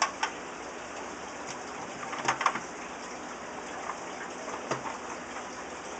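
Steady water-like hiss with a few light clicks and knocks of plastic filter parts being handled and fitted together.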